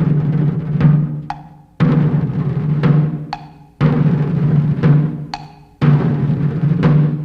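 Background music: a drum-led beat with a heavy strike about every two seconds over a steady low note, with lighter hits in between.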